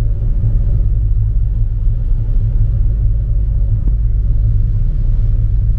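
Passenger ferry's engines running steadily under way, a continuous low rumble with a steady hum.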